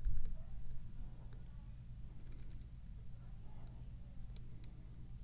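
Lock pick working the pins of a Wilka challenge lock held under tension from a homemade hex-key tensioner: a low handling bump at the start, then scattered faint metallic clicks as the pins are probed and set. A steady low hum runs underneath.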